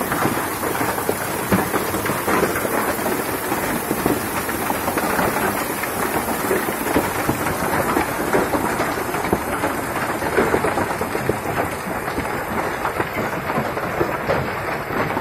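Heavy rain and hail falling steadily, a dense patter of many small hits.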